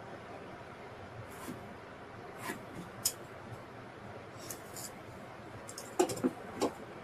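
Hand work in a workshop: a few light clicks and knocks of tools or wood being handled, with a small cluster of louder knocks near the end.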